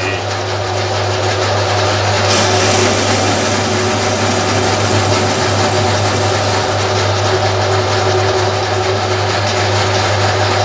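Metal lathe running with its chuck spinning, a steady motor hum under a hiss. About two seconds in the hiss grows brighter as a scrap cutting tool starts truing the small ceramic grinding stone turning in the chuck.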